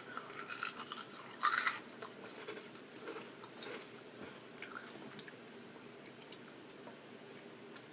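Close-miked eating sounds: a few louder bites in the first two seconds, then quieter chewing with small wet clicks.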